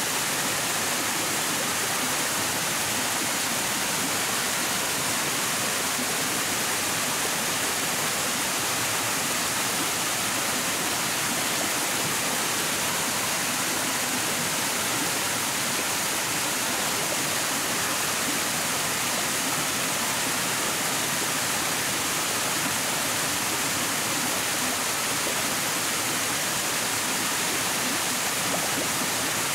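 Steady, unbroken rushing of flowing water.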